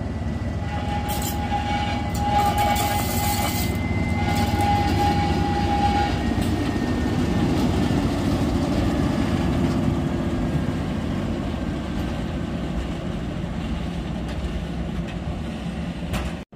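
SM42 diesel-electric shunting locomotive running light past at close range, its diesel engine rumbling and growing loudest as it goes by, about halfway through. A steady high whine sounds over the first six seconds, broken once, along with a few clicks from the wheels over the rails.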